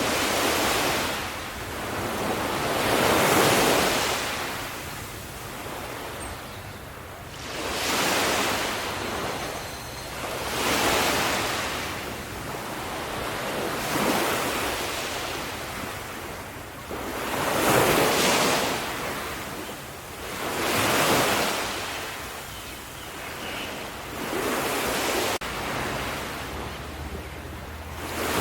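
Sea waves breaking, each a rush of surf that swells and fades, one about every three to four seconds.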